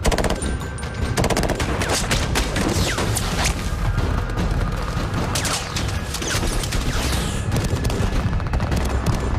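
Heavy, continuous automatic gunfire from rifles and machine guns, many rapid shots overlapping without a break.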